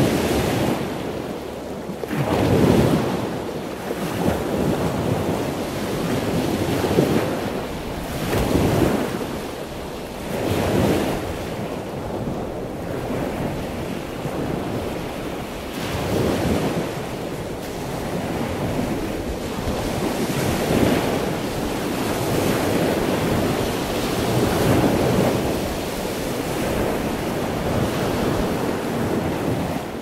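Ocean waves breaking and washing in, a continuous roar of surf that swells and falls every few seconds, with wind blowing across the microphone.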